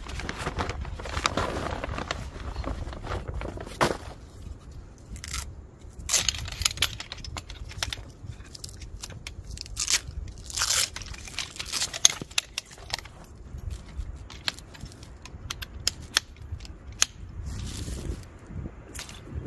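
Mission Mountain folding camp chair being unpacked and assembled: nylon carry bag rustling, and the chair's metal poles and hubs clicking and scraping as the frame is unfolded, in a run of short, irregular clicks and rustles.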